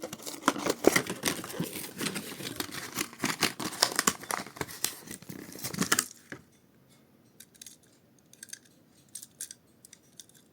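Plastic and cardboard diecast toy-car packaging being handled and torn open, with dense crinkling and crackling for about six seconds, then only a few faint clicks and rustles.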